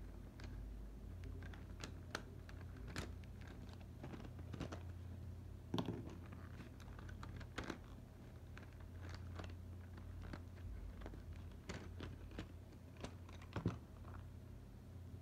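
Irregular light clicks and taps from colored pencils being handled and picked up, the sharpest about 6 s in and just before the end, over a low steady hum.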